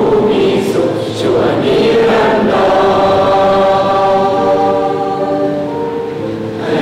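A large group singing together, like a choir: sung words at first, then one long held note from about two and a half seconds in that fades near the end.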